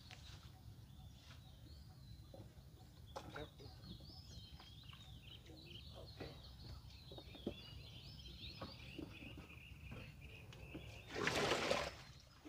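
Birds chirping and singing over a low outdoor rumble, with scattered light knocks. About eleven seconds in comes a loud rush of noise lasting about a second.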